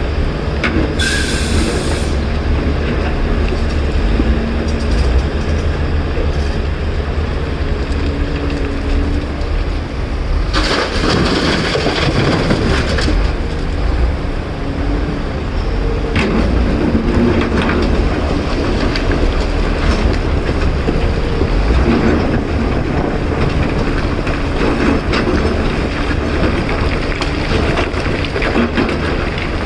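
Caterpillar 336 excavator's diesel engine running under load with a heavy, steady low rumble. About ten seconds in, a loud scraping rush lasting a few seconds joins it, typical of rock and dirt being scooped or dumped into a truck bed.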